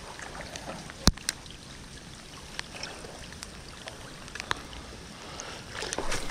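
A single sharp, loud pop about a second in, which the angler calls a big pop, over a steady hiss of rain and water, with a few lighter clicks and a short splashy rush near the end.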